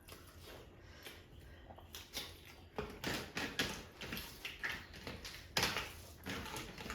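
Eating sounds: faint, irregular short smacks and clicks of someone chewing and handling rice and curry, growing busier about three seconds in.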